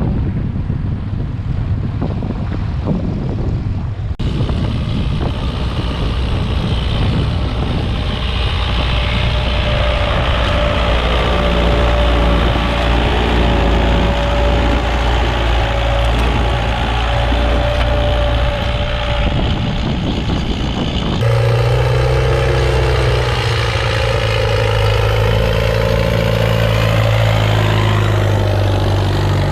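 Vintage tractor engines running steadily, the engine note changing abruptly about four seconds in and again about two-thirds of the way through.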